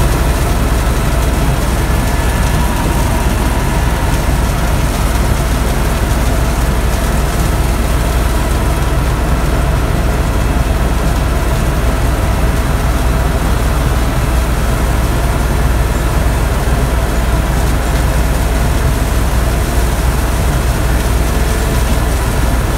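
Helicopter cabin noise in flight, heard from inside the cockpit: a loud, steady, deep drone from the rotor and engine with a hiss over it.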